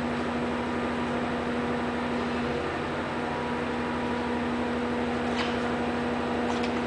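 Steady machine hum with a constant low tone over an even hiss, and a few faint clicks near the end.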